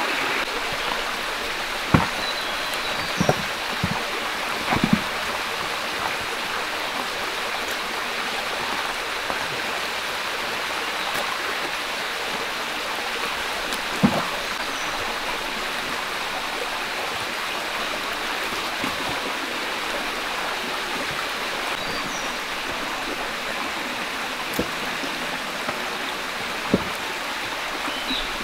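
Stream water rushing steadily, with a few sharp knocks cutting through it: several in the first five seconds and a couple more later on.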